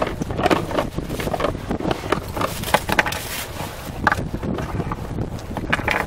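Wind buffeting the microphone over a low rumble, with many small irregular knocks and clicks from a fishing rig being handled close to the microphone.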